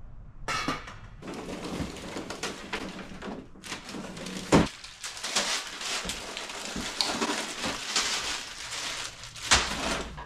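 Rummaging among frozen bags in a freezer: steady crinkling and rustling with scattered knocks, and two sharp thumps, one about four and a half seconds in and one near the end.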